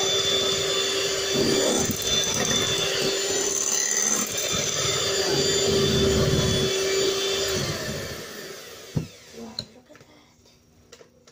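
Electric hand mixer whisking egg whites to stiff foam in a glass bowl, its motor running steadily, then winding down and stopping about eight seconds in. A sharp knock follows, then a few light clicks.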